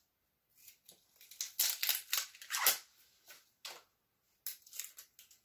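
Small cosmetic packaging being handled and opened to get at a liquid lipstick: a string of short, crisp rustles and crinkles, densest a second or two in, then a few lighter ones near the end.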